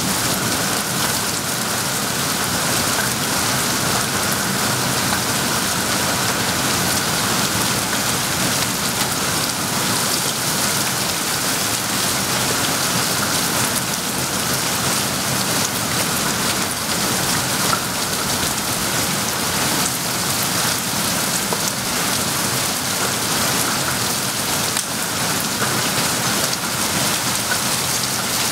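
Heavy rain falling steadily in an intense storm downpour.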